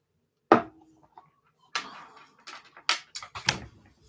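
Things being handled on a desk: one sharp knock about half a second in, then a run of irregular clicks, knocks and rustles.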